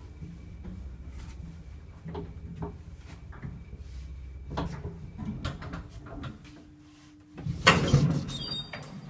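Passenger lift car running with a low steady hum and a few light clicks, which stops about seven seconds in; a second later a loud clunk and rattle as the car's swing door is pushed open by hand.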